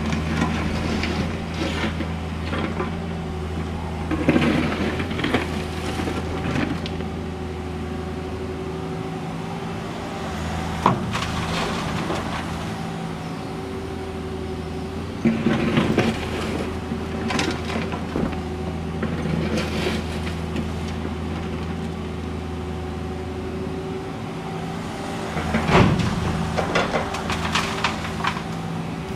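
Cat 305.5E2 mini excavator's diesel engine running steadily, with repeated bursts of clatter and crashing as broken asphalt slabs are scooped up and dropped into a steel dump truck body.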